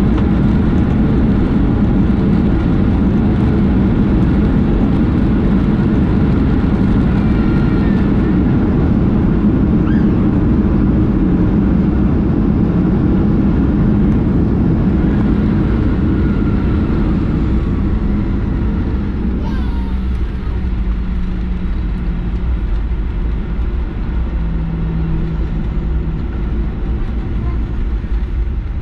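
Boeing 737-800 jet engines and airflow heard from inside the cabin: a loud, steady rush and hum that eases off about two-thirds of the way through, leaving a lower, quieter hum.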